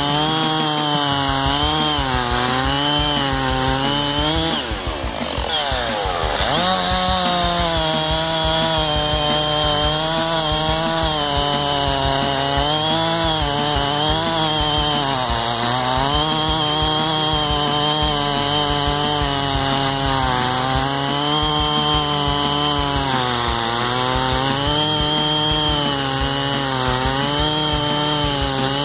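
Stihl MS660 two-stroke chainsaw with a Cross Performance ported cylinder kit, running at full throttle while cutting through red oak, its pitch wavering as the chain bogs and recovers. About five seconds in, one cut finishes: the engine pitch swings up and down and dips briefly, then it settles back under load into the next cut, which runs on steadily.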